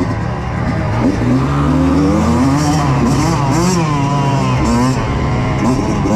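Kawasaki KX85's two-stroke single-cylinder engine revving up and down as the dirt bike is ridden along a rough trail, its pitch rising and falling with each blip of the throttle.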